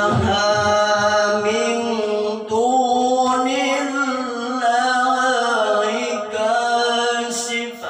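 A qari's solo male voice in melodic Arabic recitation, drawing out one long unbroken phrase with the pitch winding up and down in ornamented turns, fading away near the end.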